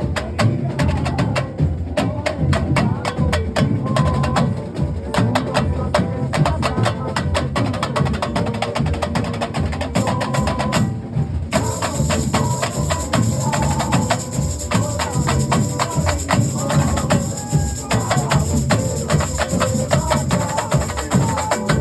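Comparsa drum section (batería) playing a fast, loud rhythm: deep bass drums under dense, sharp high strokes. A bright high hiss joins about halfway through.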